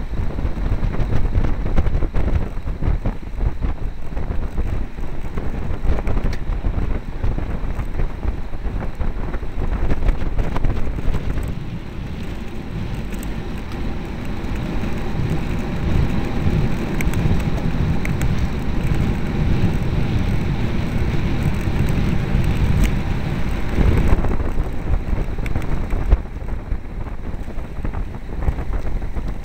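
Wind buffeting the microphone of a camera on a moving road bicycle: a loud, gusting low rumble that settles into a smoother, steadier rush about twelve seconds in.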